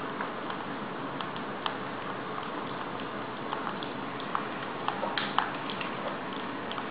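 Puppy eating dry kibble from a feeding bowl: irregular small clicks and crunches of the food and bowl, a cluster of louder clicks about five seconds in.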